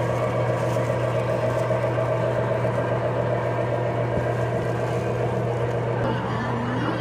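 A steady mechanical hum with a whirring rattle that holds an even level throughout.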